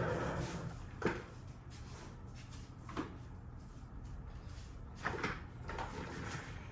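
A few light plastic knocks and clicks as a cordless phone handset is picked up and handled: single knocks about a second in and three seconds in, then a small cluster near the end.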